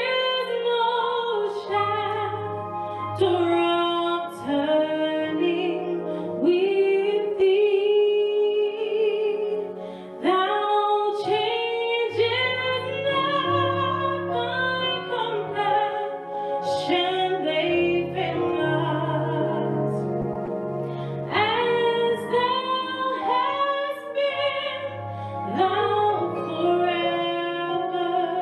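A woman singing solo into a microphone, a slow melody over an instrumental accompaniment with sustained low notes.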